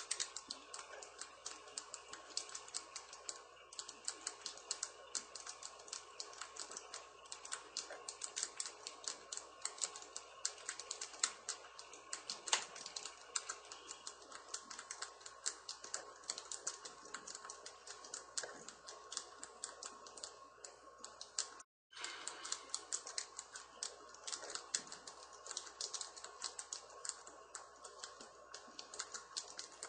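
Fast, continuous clicking of keys on a flip-phone 10-key keypad (the FIO-KeyBO demo unit), pressed many times a second in an uneven stream during high-speed text entry, over a faint steady hum. The sound cuts out for a moment about two-thirds of the way through.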